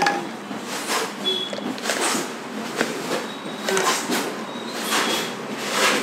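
Handheld vacuum cleaner's plastic dust container being handled and opened: a series of plastic clicks and knocks, with a few short high clinks.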